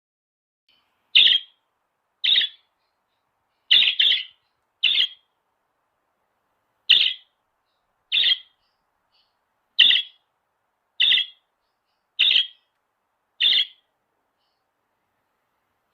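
Lovebird giving short, sharp, high-pitched chirps, about eleven in all, spaced a second or so apart with silence between, two of them in quick succession about four seconds in.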